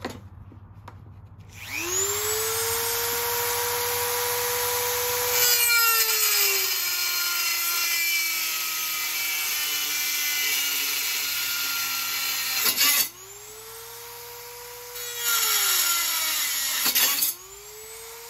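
Dremel rotary tool with a cut-off wheel spinning up to a steady high whine, then grinding a notch into the sheet-metal exhaust shield, its pitch sagging as it bites into the metal. It is switched off and started again twice, spinning back up each time and dipping again under the load.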